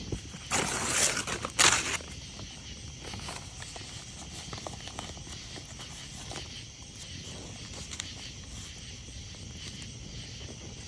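Campfire crackling with scattered pops over a steady chorus of insects chirping. A loud rustling noise runs from about half a second to two seconds in.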